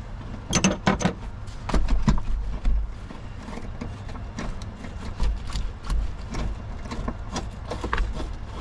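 Scattered clicks and metal clinks of a socket wrench and extension working the bolt of the battery's lower hold-down clamp, loudest in the first two seconds.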